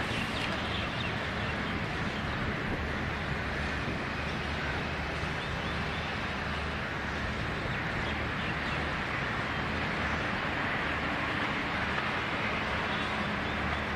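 Steady outdoor background noise with a low, even hum underneath, unchanging throughout.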